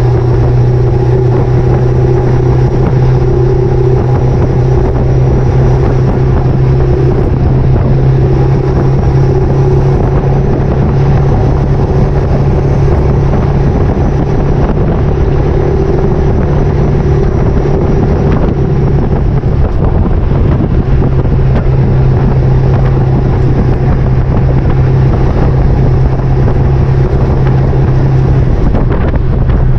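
Ford 7.3 Powerstroke V8 turbodiesel truck running steadily at road speed under a towing load, a constant low drone, with wind buffeting the microphone and road noise.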